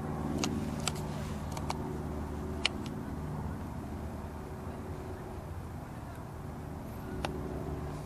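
Steady low hum of distant road traffic, with a few short sharp clicks scattered through it.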